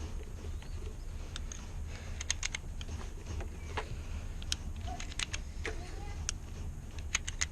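Handling noise: scattered light clicks and taps, irregular and unhurried, over a steady low rumble.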